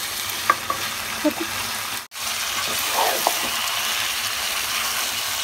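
Duck pieces sizzling in oil and spice paste in a pot while a wooden spatula stirs them, with a few light clicks early on and a momentary gap about two seconds in. The meat is being fried down in the masala before any water is added.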